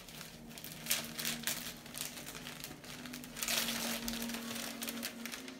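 Wrapping paper crinkling and tearing as a gift is unwrapped by hand, in irregular rustles that grow loudest a little past halfway.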